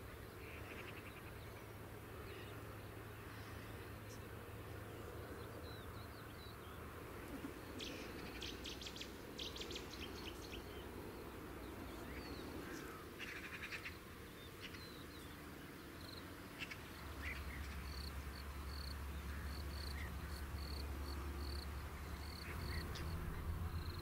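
Insects buzzing (mosquitoes and midges) with birds calling: a quick flurry of chirps about a third of the way in, then a short high note repeated regularly through the second half, over a low steady hum.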